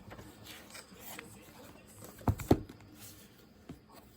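Faint clicks and rustling, with two soft knocks in quick succession about two and a half seconds in: small handling noises at a study desk.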